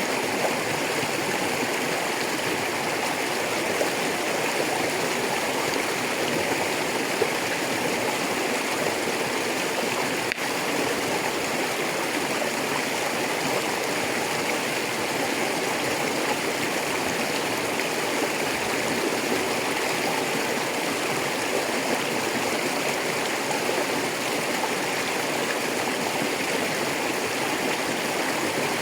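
River running over rocks: a steady, unbroken rush of flowing water.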